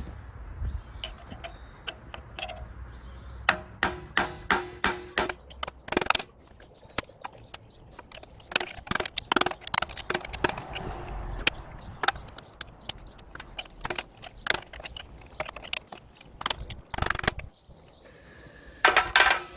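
Irregular sharp taps and knocks of hand tools working at a hard plastic insert stuck in the lower ball joint socket of an aluminum strut arm, trying to break the plastic so it will pop out.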